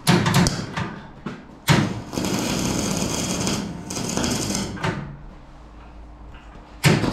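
Electric arc welding of steel angle iron: the arc crackling and sizzling in runs, stopping about five seconds in and striking again near the end.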